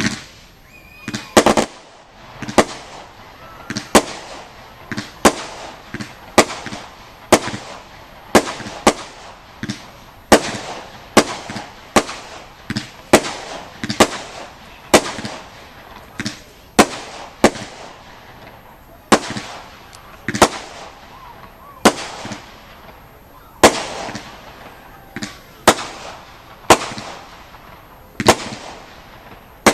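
Category F2 consumer fireworks going off: a steady run of sharp bangs about once a second, each trailing off, with two close together about a second and a half in.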